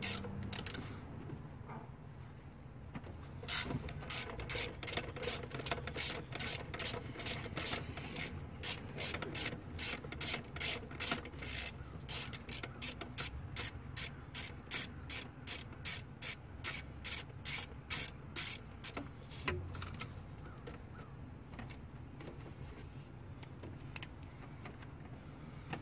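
Hand ratchet clicking in a steady run, about three clicks a second, as it backs out the bolts holding an EGR valve; the clicking stops a few seconds before the end.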